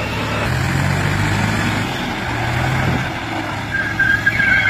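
A New Holland 4710 tractor's diesel engine and a Toyota Fortuner SUV's engine straining under load against each other, their engine notes shifting in pitch, with spinning tyres churning dry dirt.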